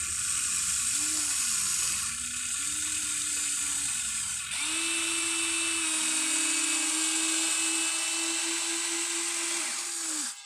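Electric motors and gearboxes of a Huina 1593 RC excavator whirring. The motor pitch rises and falls in several short movements, then holds as one steady whine for about six seconds before cutting off suddenly.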